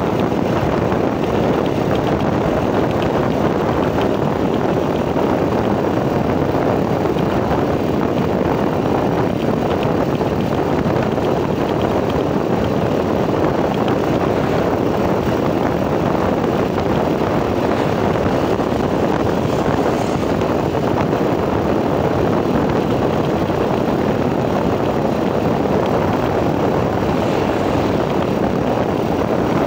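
Steady rush of wind and engine noise from a motorcycle riding along a highway at speed, with no change in pace.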